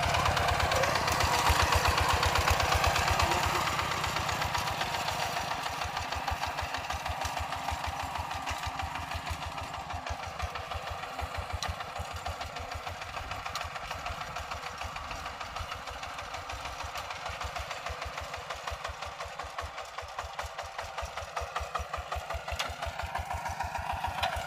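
Two-wheel walking tractor's single-cylinder diesel engine running steadily as it pulls a rice seeder and rake. It is loudest in the first few seconds, then grows quieter as the tractor pulls away.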